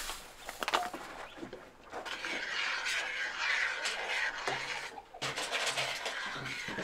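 A utensil knocks against a small saucepan about a second in as starch is stirred into simmering gooseberries. From about two seconds in, birds call steadily in the background.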